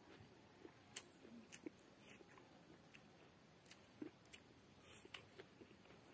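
Faint, barely audible sounds of a person eating with his fingers from a banana leaf: chewing, with scattered soft clicks as fingers pick at rice and fish on the leaf.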